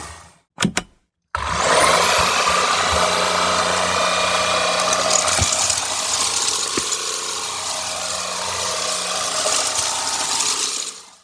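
Shark EVOPOWER SYSTEM iQ+ cordless stick vacuum switched on after two short clicks, its motor spinning up with a rising whine and then running steadily while it sucks up dry pet-food kibble, with a couple of sharp ticks along the way. It shuts off near the end.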